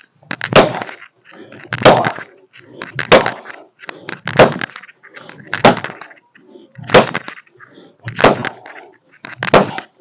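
Steel axe chopping hard mango-wood logs: eight heavy strikes at an even pace, about one every second and a quarter, each a sharp crack into the wood.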